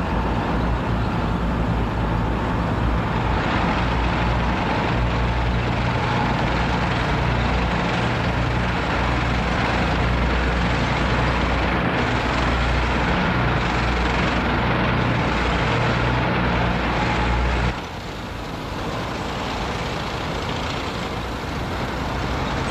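Heavy military vehicles of a parade column driving past, a loud steady engine drone with a rumbling low hum. The sound drops abruptly in level about eighteen seconds in and carries on more quietly.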